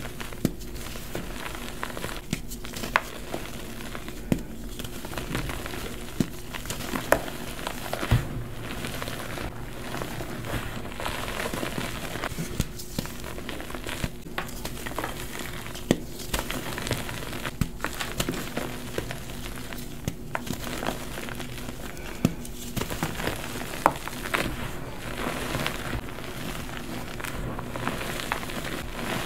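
Hands crushing and crumbling a block of hydrophobic chalk into powder. A steady dry crumbling crackle runs throughout, with a sharp crunch every second or two as chunks break.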